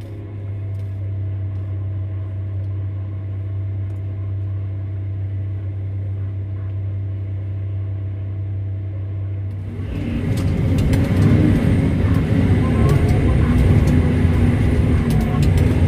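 Komatsu HD785-7 haul truck's V12 diesel engine heard from inside the cab, idling with a steady low hum. About ten seconds in it revs up and grows louder as the truck pulls away, with scattered knocks and road noise on top.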